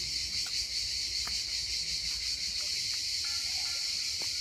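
Steady, high-pitched insect chorus, with a few faint clicks underneath.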